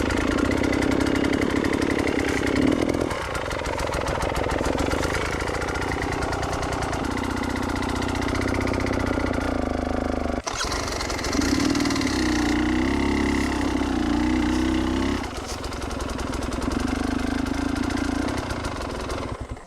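Enduro dirt bike engine running under load on a steep climb, its pitch rising and falling in stretches of a few seconds as the throttle is worked, with a brief dip about halfway through.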